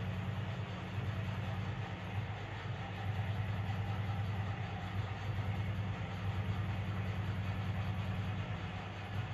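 Steady machine hum with a constant airy hiss, like a running electric fan or blower, slightly wavering in level.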